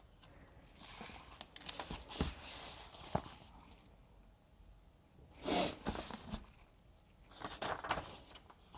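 Pages of a hardcover book being turned and handled: soft paper rustles and light taps, with a louder swish of a page about five and a half seconds in and more rustling near the end.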